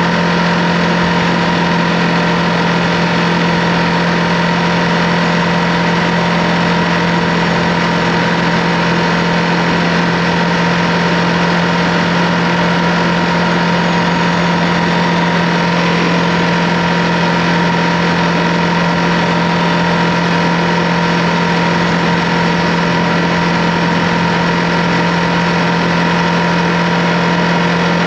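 Ducati Multistrada V2S motorcycle's V-twin engine running at a steady engine speed, its note holding one unchanging pitch throughout.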